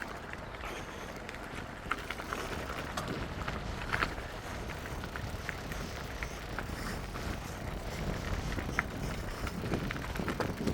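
Steady low rumble of earthmoving machinery working across a construction site, with a few light clicks scattered through it.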